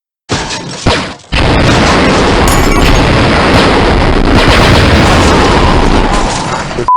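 Cartoon explosion sound effect: a short blast, a second one about a second in, then a long, loud rumbling blast lasting several seconds that cuts off suddenly near the end.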